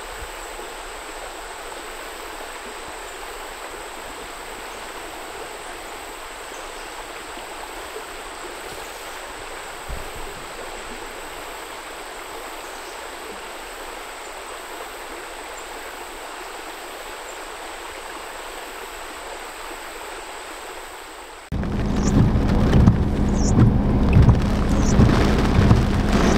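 A shallow creek trickling steadily over a stony riffle, with one low thump about ten seconds in. About 21 seconds in, the sound cuts abruptly to a much louder, heavy downpour from a summer thunderstorm, with gusts of wind buffeting the microphone.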